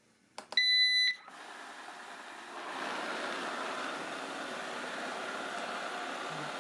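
Eufy RoboVac 30C robot vacuum powering on: a click from its power button, a single high beep of about half a second, then its suction fan and brushes start up and run steadily, louder from about two and a half seconds in. It is running smoothly with no clicking or ratcheting, the side brush motor gears having just been replaced.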